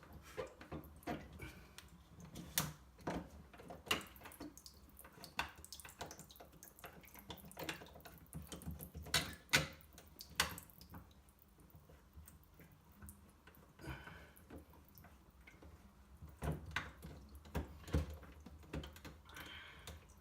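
Irregular clicks, knocks and clatters of hard parts being handled at a washbasin, with a couple of brief water sounds.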